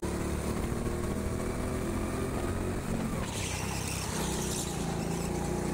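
Indoor rental go-kart running at speed, heard from on board, with a steady engine drone throughout. About three seconds in, a brief high hiss rises over it for about a second and a half.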